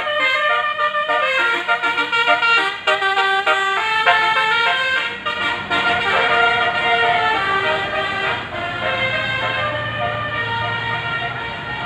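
Bus's multi-trumpet telolet basuri horn playing a tune, several tones stepping from note to note together. In the last few seconds the tune fades and a low engine rumble comes up beneath it.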